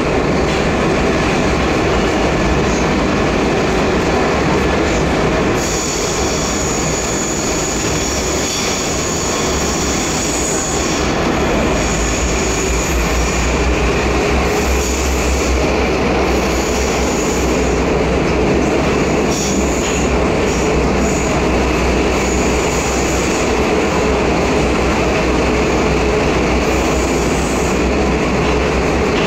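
Prague metro train running between stations, heard from inside a packed car: a steady loud rumble of wheels and running gear. From about six seconds in, a high wheel squeal comes and goes.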